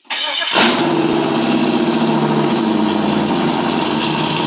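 Holden ute's 308 V8 starting up: it catches with a brief rev about half a second in, then settles into a loud, steady idle.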